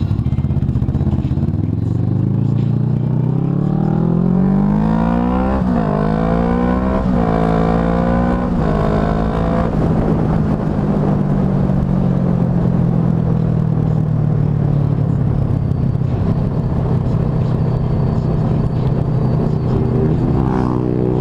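Kawasaki ER-6n's parallel-twin engine accelerating hard through the gears, its pitch climbing and then dropping at each upshift, about six, seven and eight and a half seconds in. It then runs steadily at cruising speed.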